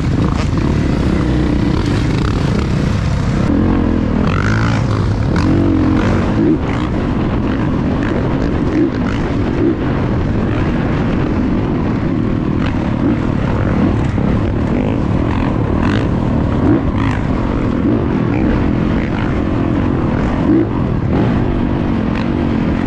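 Dirt bike engine running hard under the rider, heard from a helmet camera, its note rising and falling with the throttle, mixed with wind rushing over the microphone.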